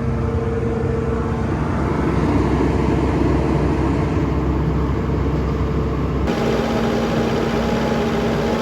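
Bobcat S770 skid steer's four-cylinder diesel engine running steadily. About two seconds in, the even hum turns slightly louder and rougher. About six seconds in, the sound changes abruptly back to a steady hum.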